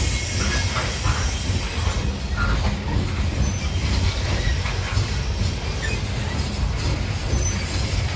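Loaded freight train cars rolling past close by: a steady low rumble of steel wheels on the rails, with a few faint, brief wheel squeals.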